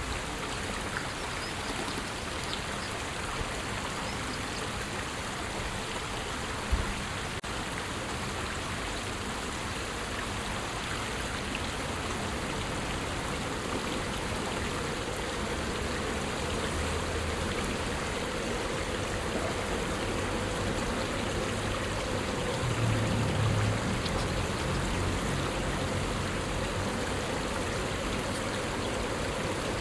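Steady outdoor rushing noise with no bird calls, and a single brief knock about seven seconds in.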